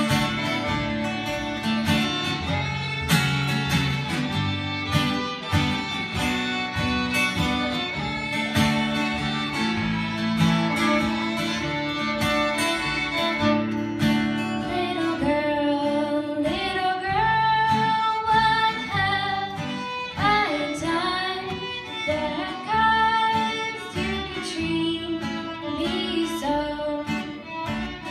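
A small acoustic folk band playing live: fiddle and strummed acoustic guitar over a low bass line, with a woman singing.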